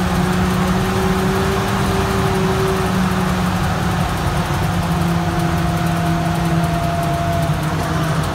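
A Duck amphibious tour vehicle's engine and drivetrain running steadily under way, heard from the passenger seats: a continuous drone with a whining tone that shifts slightly in pitch.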